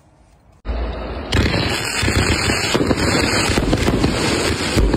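A 258-shot, 1.2-inch fireworks cake firing: after a quiet moment, a dense, rapid, unbroken run of shots and cracks starts suddenly about half a second in and grows louder a moment later.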